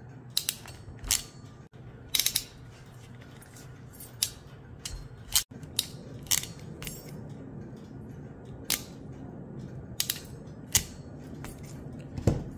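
Hand crimping pliers clicking and snapping shut as a metal sleeve is crimped, twice over, onto a wire fishing leader. About a dozen sharp, separate clicks come at irregular intervals.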